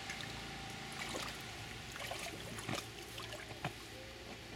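Shallow water in an inflatable kiddie pool splashing and sloshing around a wading toddler's feet, with scattered small splashes and a couple of sharper ones in the second half.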